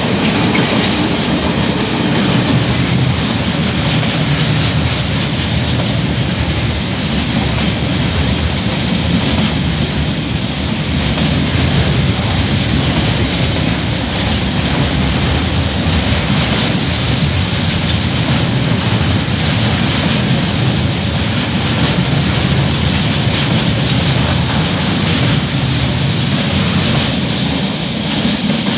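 KiwiRail coal train's container wagons rolling past close by: a steady, loud rumble of steel wheels on the rails, with a few clicks over rail joints, just after the DFT-class diesel locomotive has gone by.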